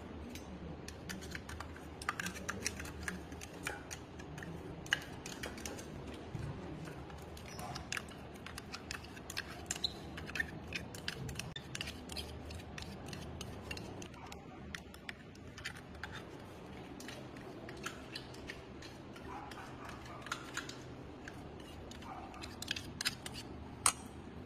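Steel spoon scraping and clinking against a stainless-steel mixer jar and bowl while scooping out thick paste: a long irregular run of sharp metallic clicks and scrapes.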